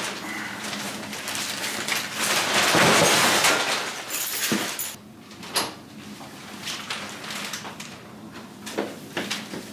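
Cardboard boxes and plastic wrapping rustling and scraping as they are carried in by hand, loudest about three seconds in, followed by quieter handling with a few sharp knocks.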